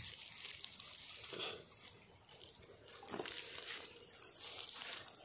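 Soft rustling and water noises in short bursts, over a steady thin high-pitched hum.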